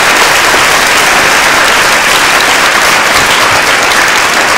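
A large audience applauding loudly and steadily, in response to the close of a rallying line in a speech.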